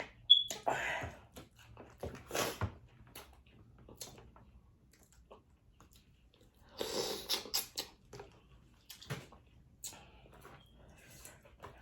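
Close-up sounds of eating seafood: chewing and biting in irregular bursts with wet clicks and smacks, loudest about half a second in and again about seven seconds in.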